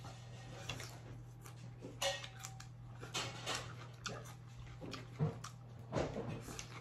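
Light, scattered clicks and taps of cutlery and chopsticks against plates, over a steady low hum.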